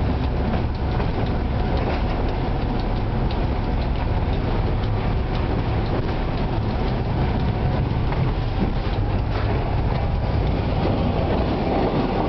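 Steady running of a 2M62 diesel locomotive's two-stroke V12 diesel engine, heard inside its cab, with a deep rumble and faint clicks of the wheels rolling over the track.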